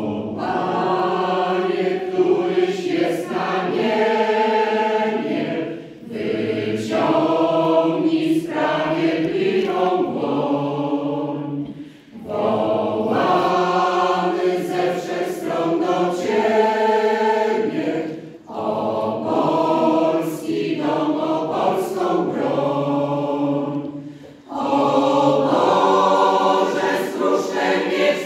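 Mixed choir of women and men singing in phrases of about six seconds, with brief breaks between them.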